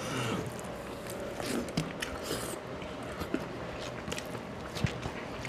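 Eating by hand: chewing, with soft squishes and scattered light clicks of fingers mixing rice and curry on a steel plate.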